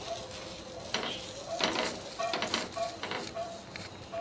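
Dosa sizzling faintly on a hot tawa while fingers rub butter over its surface, with a few soft scuffs.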